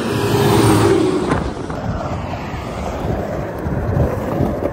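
A truck passing close on the highway, its rush loudest in the first second and a half with a low hum under it, with wind on the microphone; after that the steady rumble of skateboard wheels rolling on rough asphalt.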